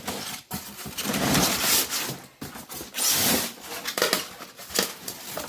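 Packaging being handled while unboxing an RC car: irregular rustling and scraping of cardboard and plastic, with a few sharp clicks.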